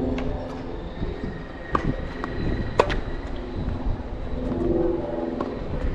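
Strong wind buffeting the microphone with a steady rumble, with sharp knocks of tennis balls being struck and bouncing, the loudest two about a second apart near the middle.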